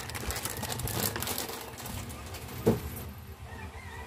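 Plastic instant-noodle packet crinkling amid handling and movement noises, with a single thump about two and a half seconds in, after which it goes quieter.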